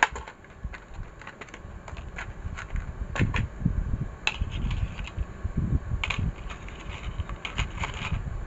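Clicking and crackling of a clear plastic piston-kit tray being opened, and the new piston and its small parts being handled in it: scattered sharp clicks and rattles in small clusters over a low background rumble.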